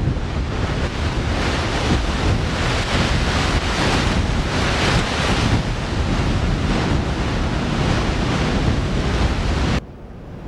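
Strong storm wind rushing and buffeting the microphone in a loud, wavering roar that cuts off abruptly near the end.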